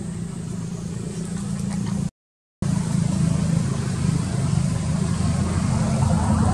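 A steady low rumble, broken by a half-second dropout to silence about two seconds in.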